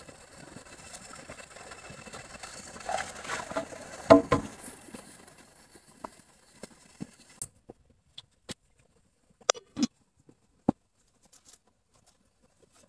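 Scattered light knocks and clicks over a low hiss. The hiss cuts off suddenly about seven seconds in, and a dozen or so short, separate clicks follow.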